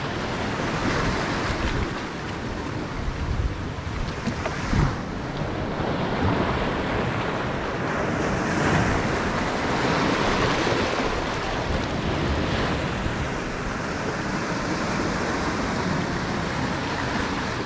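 Surf washing in over shoreline rocks, a steady rush of breaking waves, with wind buffeting the microphone.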